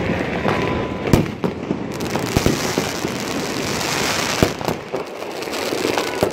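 Many fireworks and firecrackers going off across a city at once: a continuous din of crackling, with sharp single bangs scattered through it, the loudest about a second in and again near the middle.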